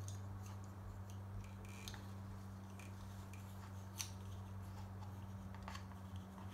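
Faint small clicks and rustles of hands handling wires and plastic connectors against an RC truck's chassis, with one sharper click about four seconds in, over a steady low hum.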